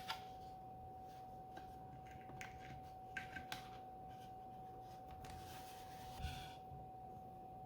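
Faint scattered clicks and soft rustles of small handling noises over a steady, faint high-pitched electronic whine.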